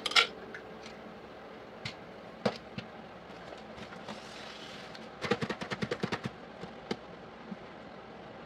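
Art supplies handled on a wooden tabletop: a sharp knock as colored pencils are handled, then scattered clicks and taps. A brief rustle of a plastic bubble mailer comes about four seconds in, and a quick run of about ten clicks follows a second later.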